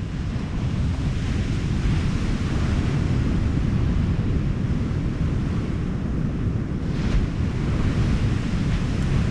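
Wind buffeting the microphone as a heavy, uneven rumble, over the steady wash of breaking surf that swells a couple of times.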